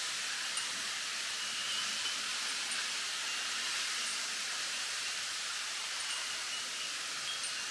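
Wind through a bamboo grove, its leaves rustling in a steady, even hiss, with a few faint chime tones now and then.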